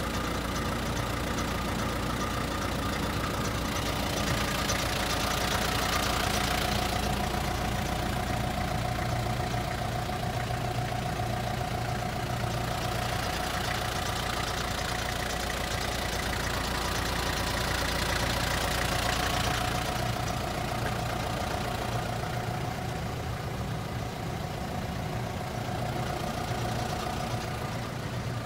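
Isuzu Elf truck's 4JG2 four-cylinder diesel engine idling steadily.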